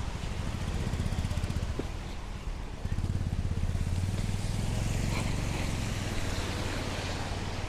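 Road traffic on a rain-wet street: a motorcycle and a car pass close by over a steady low engine rumble, which grows louder about three seconds in.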